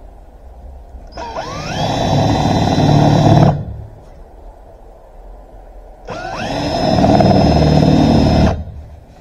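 Cordless drill boring a half-inch hole through a sheet on a wooden block, run twice for about two and a half seconds each. Each run opens with a rising whine as the motor spins up, then holds steady.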